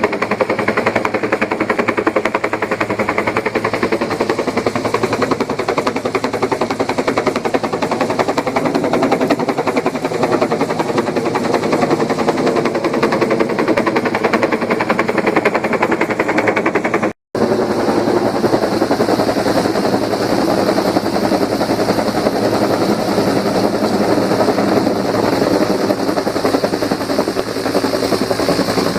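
Helicopter close by, its rotor blades chopping fast and steady. The sound cuts out for an instant a little past halfway, then carries on.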